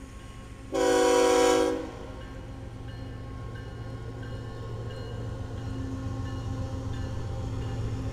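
Freight train locomotive air horn sounding one blast of about a second, several tones at once. Under it the diesel locomotives rumble past, louder toward the end.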